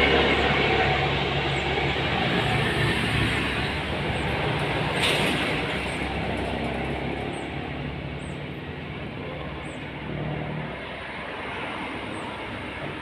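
Steady mechanical rumble of engine noise, like traffic or a train passing, slowly fading. Faint high chirps recur about once a second, and there is a brief click about five seconds in.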